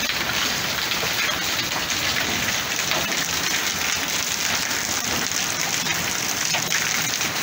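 Heavy rain falling steadily, an even hiss with faint scattered drop ticks.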